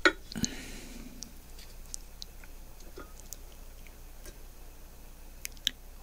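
Handling noise as a circuit board's miniature thermocouple connector is fitted onto a thermocouple clamped in a small bench vise: a sharp click at the start and another about half a second in, faint scattered ticks, then another sharp click near the end.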